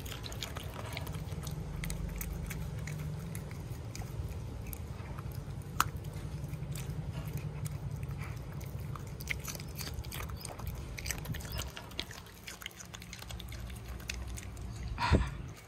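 A small dog chewing and crunching pieces of broccoli and carrot from a plastic bowl, with many small crisp bites over a low steady hum. A louder brief sound comes near the end.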